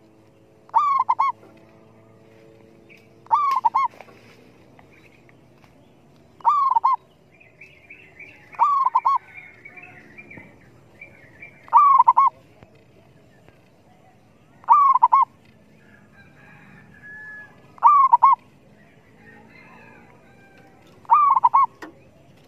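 Caged male zebra dove (merbok) used as a decoy, cooing: eight short, high-pitched phrases of a few notes each, repeated about every three seconds.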